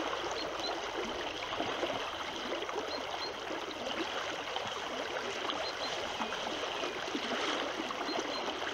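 Fast-flowing river current rushing steadily, an even wash of moving water.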